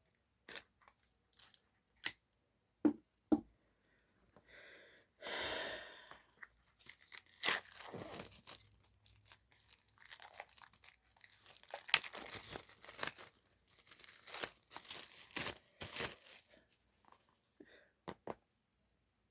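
Plastic wrapping on a CD album being torn open and crinkled. A few sharp clicks and taps come first, then dense crackling crinkles from about seven to sixteen seconds in.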